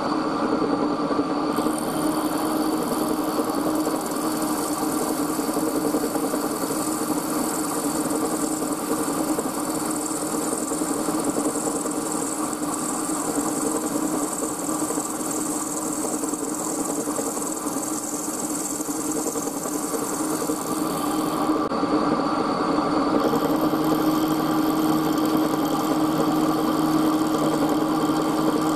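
Milling machine running a 10 mm end mill across the top of a pair of brass blocks in a face-milling pass: a steady machine tone with a high hissing cutting noise over it. The hiss stops about three-quarters of the way through and the machine's tone changes.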